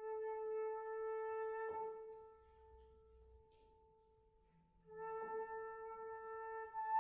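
Flute holding long sustained notes over soft piano accompaniment; the flute falls quiet for a few seconds in the middle, then returns with another long note that rises to a higher note near the end.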